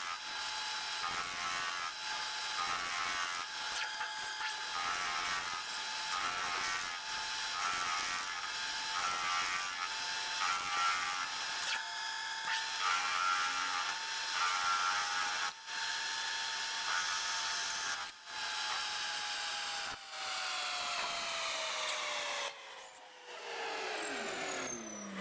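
A machine tool runs with a steady high whine over a harsh cutting noise that pulses about once a second. Over the last several seconds the whine falls steadily in pitch as the machine spins down.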